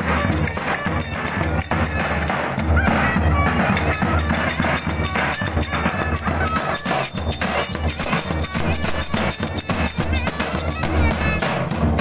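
Several davuls, large double-headed Turkish bass drums, beaten with sticks in a driving folk-dance rhythm with deep booming strokes, as part of lively Turkish folk music.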